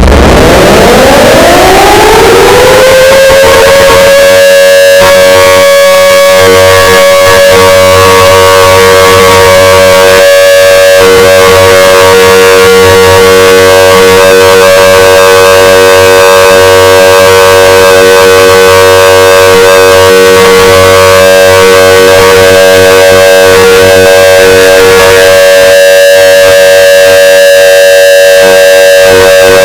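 Heavily distorted, clipped civil-defense-style siren used as a fan-made emergency alert alarm. It winds up in pitch over the first three seconds or so, then holds a steady wail of several tones at once, and cuts off suddenly at the end.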